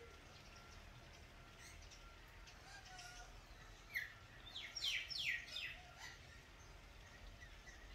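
A bird gives a quick run of sharp, falling whistled notes about four seconds in, lasting under two seconds, over faint background bird chirps.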